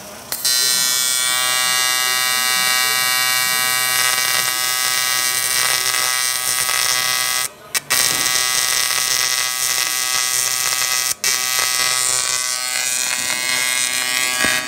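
AC TIG welding arc from an EWM Tetrix 230 AC/DC welder on thin aluminium, buzzing steadily and loudly from about half a second in. The arc breaks off for a moment a few times, twice close together around the middle and once more a few seconds later, then carries on.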